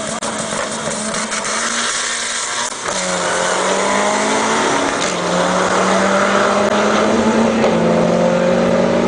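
Supercharged 2003 Ford Lightning V8 pulling hard under full throttle in a drag run. The engine note climbs, drops back at each upshift about three and five seconds in, then climbs again.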